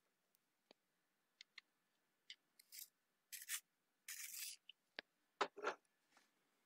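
Faint handling of colored pencils: scattered light clicks and a few short scraping rubs as a cream colored pencil is picked out and readied.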